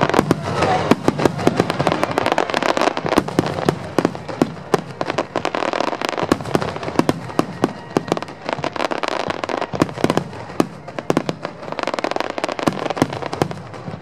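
Fireworks display: a dense, continuous barrage of sharp bangs and crackling from bursting aerial shells, going on all through.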